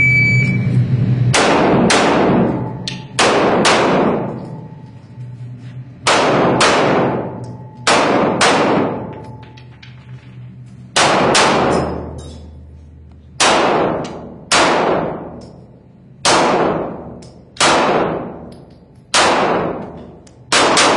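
A shot timer's short electronic beep starts the run, and a second or so later handgun fire begins. About twenty pistol shots follow, many fired in quick pairs with short pauses between strings, each shot ringing out with a long echo.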